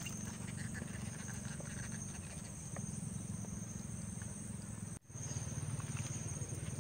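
Outdoor river-bank ambience: a steady high insect drone over a low rumble, cutting out for a moment about five seconds in.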